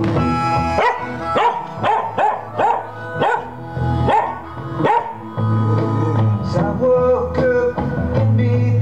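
Pembroke Welsh Corgi yipping and howling along to a rock song: a run of about nine short cries, each rising and falling in pitch, from about a second in to about five seconds in. After that the song plays on its own.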